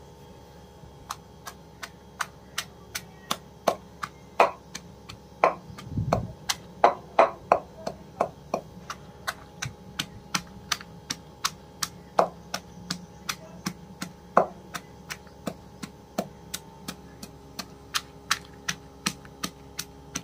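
Wooden pestle pounding green chillies, ginger, garlic and black pepper in a wooden mortar into a paste: steady, repeated thuds, about two to three a second.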